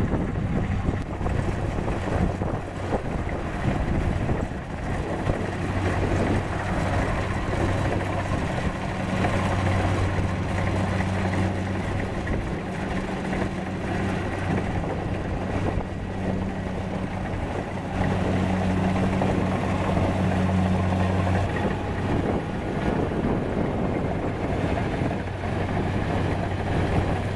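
Kubota DC-70 Plus combine harvester's diesel engine and threshing machinery running under load, a steady mechanical din. A steady-pitched engine hum stands out from about five seconds in and fades back into the din about three-quarters of the way through.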